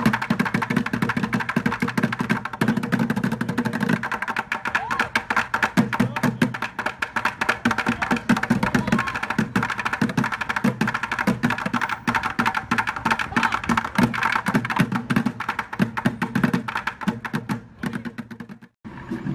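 Bucket drumming: several players beating upturned plastic buckets with drumsticks in fast, dense rhythms, deep hollow bucket thuds under rapid sharp stick hits. The playing cuts off suddenly near the end.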